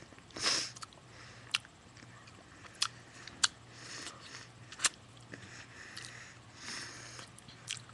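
Close-up mouth sounds of eating ice cream: scattered wet smacks and clicks of lips and tongue, with a few softer, longer noises in between.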